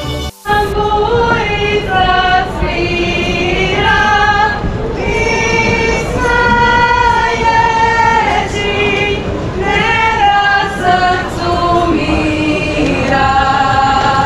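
A group of women singing a folk song together, steady and loud, broken by a brief drop-out about half a second in.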